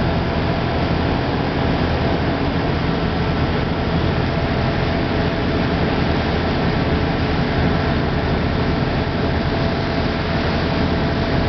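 Boat engine running steadily at speed, with water rushing along the hull from the wake.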